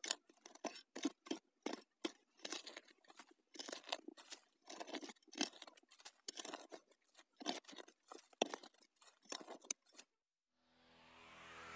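A shovel scraping and crunching into dry, clumpy soil as a planting pit is dug out, in short strokes a few times a second. The digging stops about ten seconds in, and electronic music then swells in with a rising sweep.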